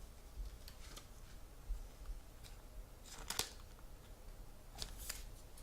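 Trading cards being handled and slid against each other: a few faint clicks and two brief rustles, about three seconds in and again about five seconds in.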